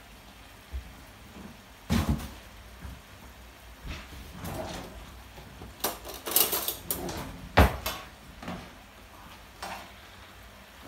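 Sharp knocks and clatters of things being handled in a kitchen, one about two seconds in, a quick run of them past the middle, and the loudest single hard knock about three-quarters of the way through.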